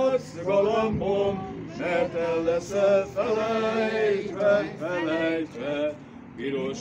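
A group of people singing a song together, men's and women's voices holding drawn-out notes that rise and fall with the tune.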